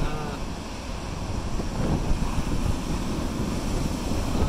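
Wind buffeting the microphone over the steady wash of surf on the beach. A brief faint call sounds right at the start.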